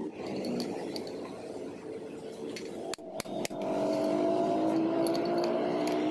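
Three light metallic knocks about three seconds in, as a metal pipe driver is set over a transmission shaft onto its ball bearing on a wooden block. A steady mechanical hum from a running motor sits underneath and grows louder after the knocks.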